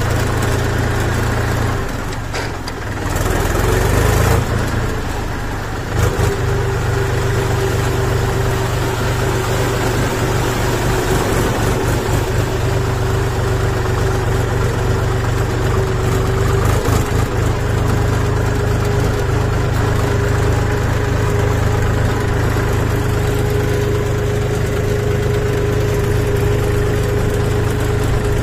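Farm tractor's diesel engine running as the tractor drives along a rough dirt track. The engine eases off about two seconds in and picks up again a second or so later, with a sharp knock a couple of seconds after that and a steady whine over the engine note.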